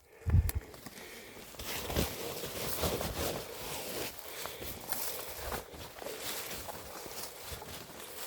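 Footsteps and rustling through dry undergrowth, a steady crackle of leaves and twigs underfoot, with a dull low thump just after the start.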